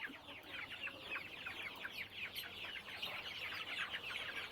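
A flock of young desi chickens peeping together, with many short, falling chirps overlapping steadily.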